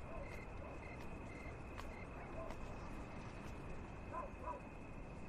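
Night-time outdoor ambience of insects: a steady high drone with short repeated cricket chirps, a few brief lower chirps near the middle and end, and occasional faint clicks.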